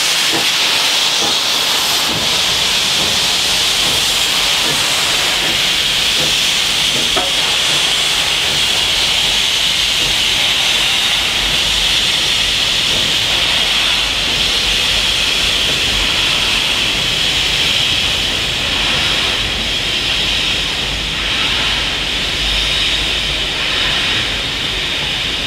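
Loud, steady hiss of steam from NSWGR C38-class streamlined locomotive 3801 as its train passes below, joined about halfway through by a low rumble of the carriages rolling over the track.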